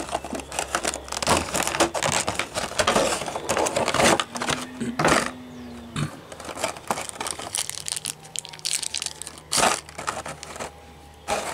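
Clear plastic packaging crinkling and crackling as a diecast model airliner is slid out of its plastic sleeve and moulded tray: dense crackling for about the first half, then sparser rustles and one sharp click near the end.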